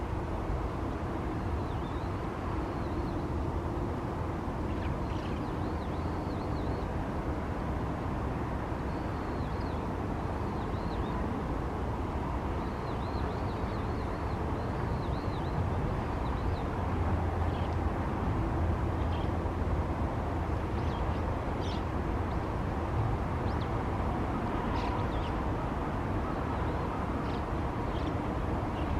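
Bull-headed shrike calling faintly: short high chirping notes in runs of a few at a time, then scattered sharp single notes in the last third, over a steady low background rumble that is the loudest sound.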